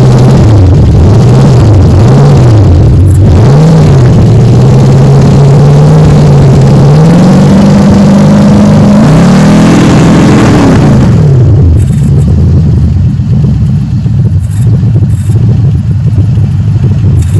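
LS-swapped V8 in a G-body Cutlass Supreme running and being revved, loud: three short blips of the throttle, then revs rising and held, a quick rev about ten seconds in, then settling back to a lower, steady idle for the last few seconds. The engine is running on a newly installed wiring harness.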